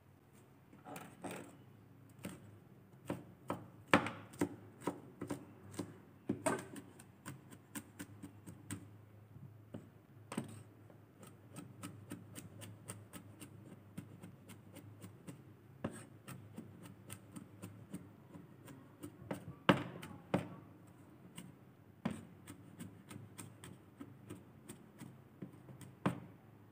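Cleaver chopping peeled garlic cloves on a wooden cutting board: quick, uneven runs of the blade knocking on the board, with a few harder strikes among them.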